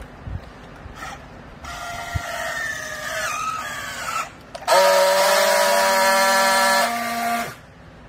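Handheld electric strapping tool on yellow plastic strap around a bale: its motor runs for about two and a half seconds with a pitch that slides down as it tensions the strap. After a short pause comes a louder, steady buzz for nearly three seconds as it friction-welds the strap, cutting off sharply.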